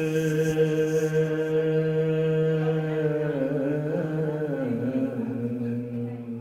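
A man's voice chanting in long held notes with a slight waver, the pitch stepping down to a lower held note about two-thirds of the way through.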